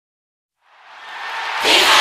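Intro sound effect: a rising whoosh of noise that swells from about half a second in and breaks into a bright crash about a second and a half in, leading into the intro music.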